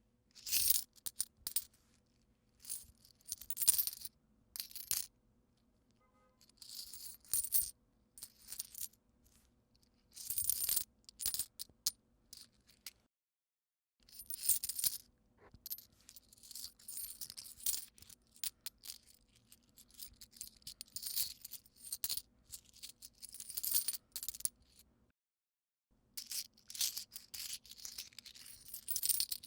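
Loose coins jingling and clinking in a hand as they are sifted through and shaken, in repeated short bursts with pauses between them. Two full silences, one near the middle and one about two-thirds of the way through, break the sound into separate takes.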